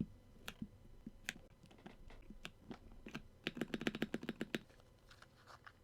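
Keystrokes on a Redragon 60% mechanical keyboard with Akko Bittersweet tactile and Dragon Breath switches. Scattered single key clicks give way to a quick run of about a dozen rapid keystrokes past the middle, then a few more clicks.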